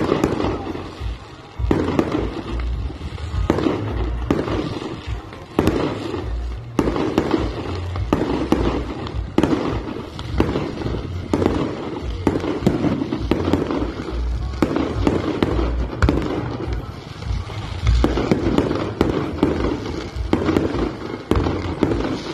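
Fireworks display: shells bursting overhead in a rapid, continuous series of bangs and crackles.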